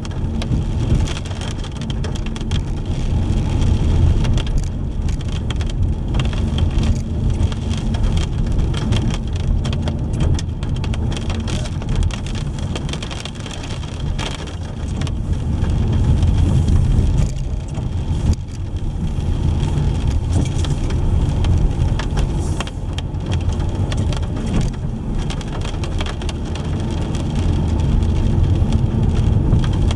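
Car driving in the rain: a steady low road-and-engine rumble with rain ticking and pattering on the car throughout, the rumble swelling and easing a little with speed.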